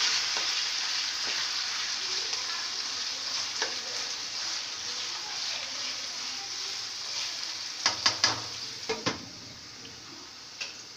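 Raw chicken pieces sizzling in hot oil in a non-stick frying pan as they are stirred with a spatula, the sizzle slowly fading. A few sharp clanks about eight and nine seconds in as a lid goes onto the pan, after which the sizzle is quieter.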